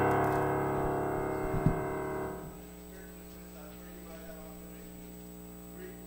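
A sustained piano chord fading away and dying out about two and a half seconds in, with a single short knock just before it ends. After that only a low steady hum remains.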